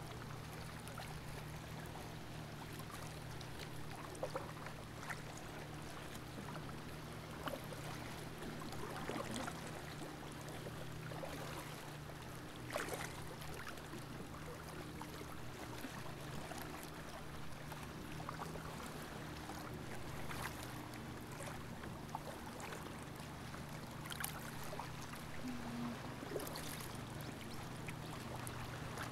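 Kayak paddle dipping and splashing in calm sea water, with trickles and drips at irregular intervals, over a steady low hum.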